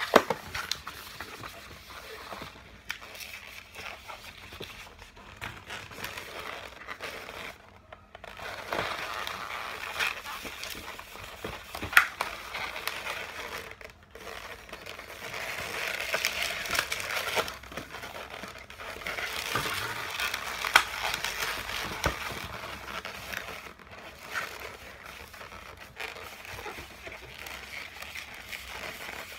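Latex modelling balloons being twisted and handled, the rubber rubbing, squeaking and crinkling against itself and the hands, with a few sharp clicks.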